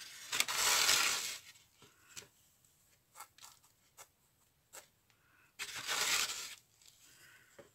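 Hands rubbing and pressing glued paper decorations in a polystyrene foam box: two rustling scrapes, each about a second long, one near the start and one about six seconds in, with a few light clicks between.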